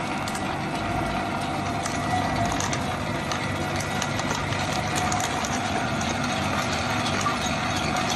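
Small flat-die wood pellet mill running steadily while pressing sawdust into pellets: a continuous mechanical hum with a constant light clatter as pellets drop out onto its metal discharge chute.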